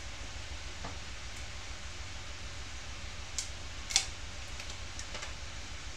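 A few small sharp clicks of a new white wine vinegar bottle's cap being worked open, the loudest about four seconds in, over a steady hiss and low hum.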